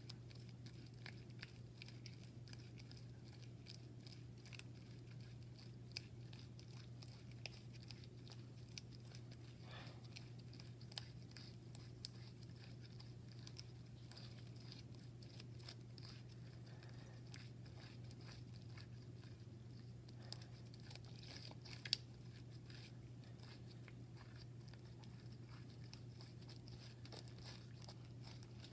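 Near silence: a steady low hum with scattered faint clicks and taps.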